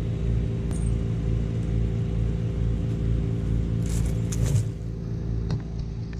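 An engine idling steadily with a low, even pulsing hum, with a few light clicks and rattles about four seconds in.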